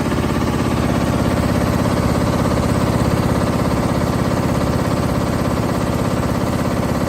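M Tex high-speed machine running steadily with a fast, even mechanical beat, swelling slightly in loudness about halfway through.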